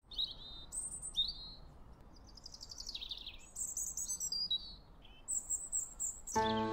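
Songbirds chirping and singing in short high phrases, among them a falling trill, over a faint background hiss. Music with held notes comes in near the end.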